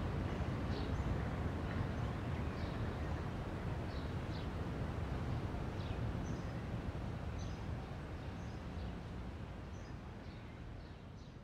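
Outdoor ambience: a steady low rumble with scattered short bird chirps, fading out near the end.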